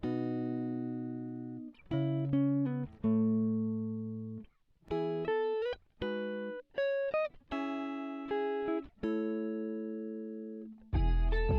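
Background music: a plucked-string melody, short runs of quick notes alternating with held notes that slowly fade.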